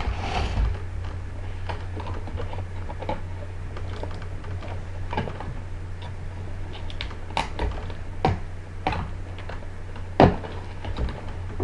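Irregular clicks and knocks of plastic and cardboard packaging and Nerf blaster parts being handled during unboxing, a few sharper knocks standing out, over a steady low hum.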